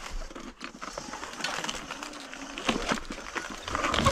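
Leaves and grass swishing and scraping past a slowly ridden Sur-Ron electric dirt bike, with scattered clicks and knocks from the bike and the trail. Near the end a combustion dirt bike's engine starts to be heard, a low steady drone.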